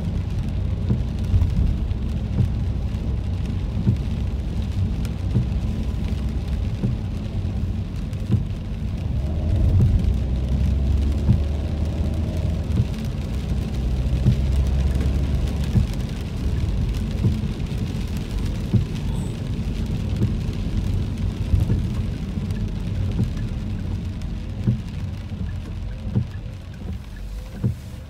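Rain falling on a car's roof and windshield, heard from inside the cabin over the car's steady low road rumble, with the windshield wipers sweeping across the wet glass.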